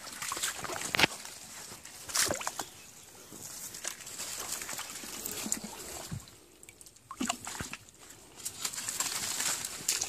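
Hands rummaging through wet leaf litter and shallow stream water, giving irregular rustling and splashing, with a few sharp knocks.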